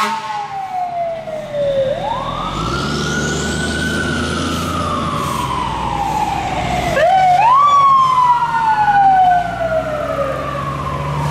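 Emergency vehicle siren on wail, its pitch climbing fairly quickly and then falling slowly, each rise and fall taking about four to five seconds. A vehicle engine rumbles underneath, and the siren is loudest about two thirds of the way through.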